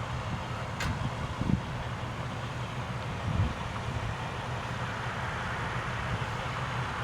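Motor vehicle engines running in a steady low rumble.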